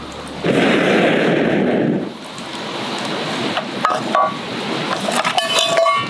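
One long breath blown through a metal fire-blowing pipe into a wood fire, a rushing blow that ends about two seconds in. Then the burning firewood crackles, with scattered sharp snaps and pops toward the end.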